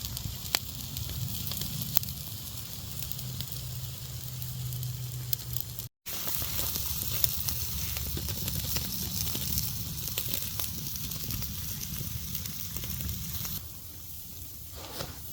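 Steak sizzling on a titanium grill grate over campfire coals, a steady hiss with occasional sharp crackles and pops from the fire. The sound cuts out for a moment about six seconds in.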